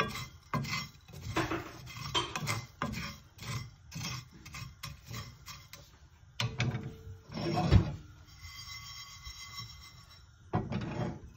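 A wooden spatula scraping through dry-roasting peppercorns and salt in a cast-iron skillet, about two strokes a second. From about six seconds in, the pan is shaken instead and the peppercorns rattle and slide across the iron in a few longer rushes, the loudest just before eight seconds and another near the end.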